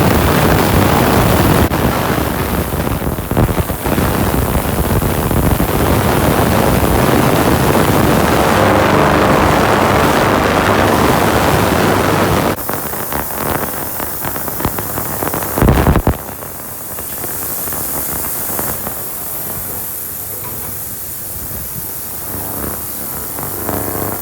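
Industrial heavy-duty ultrasonic cleaner running with its transducers switched on, a loud, even hissing buzz of cavitation in the water tank. About twelve seconds in it drops in level, swells briefly near sixteen seconds, then settles to a lower steady hiss.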